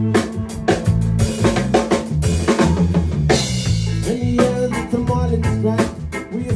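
Live band playing an instrumental passage: drum kit with snare and bass drum hits over a low bass line, with semi-hollow electric guitar. The groove is reggae-style.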